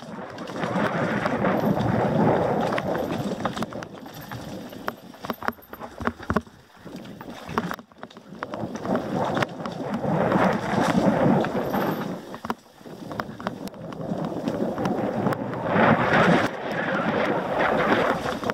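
Wind rushing over an action camera's microphone during a fast mountain-bike descent on a dirt trail, mixed with tyre noise and the bike rattling over bumps. The rush swells and eases several times with speed, and a run of sharp knocks and clicks comes around the middle.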